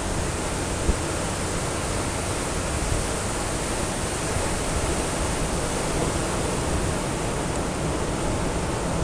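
Steady rushing noise of wind and choppy sea, with low wind rumble on the microphone.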